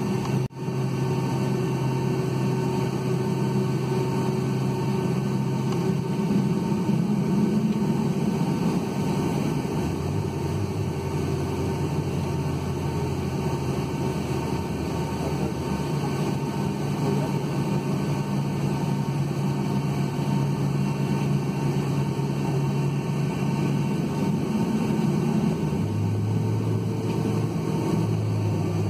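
Boeing 757-200 cabin noise while taxiing, heard from a window seat over the wing: a steady engine and air-system drone with several humming tones. The lowest hum changes pitch a few times, and there is a momentary drop-out just after the start.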